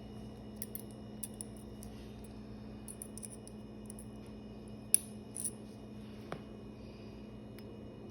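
Metal surgical instruments, a needle driver and forceps, clicking and tapping in a series of short light clicks over a steady low hum, with one sharper click about five seconds in.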